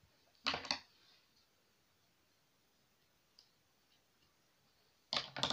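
Two short clusters of sharp clicks, several quick clicks each, about half a second in and again near the end, with a faint single tick between them in a quiet room.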